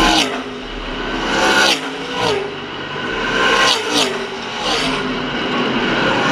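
NASCAR K&N Pro Series West V8 stock cars racing past one after another at speed, each engine note dropping in pitch as the car goes by. There are about five pass-bys, some in quick succession.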